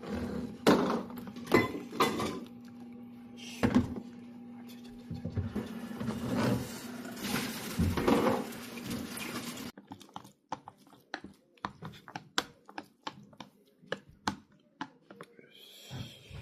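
Clatter and knocks of a plastic microwave pasta container and cutlery being handled, over a steady hum that cuts off about ten seconds in; after that, scattered light clicks and taps.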